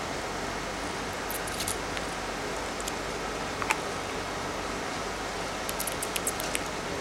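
Ginger kitten suckling on a human finger, making small wet clicks and smacks, a cluster of them near the end, over a steady hiss.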